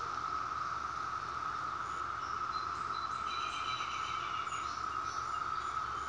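Chorus of periodical cicadas: a steady, unbroken high drone, with a few faint higher chirps about halfway through.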